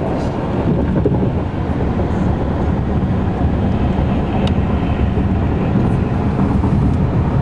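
Steady road and engine noise heard inside a moving car's cabin: an even low rumble from the tyres and engine at freeway speed.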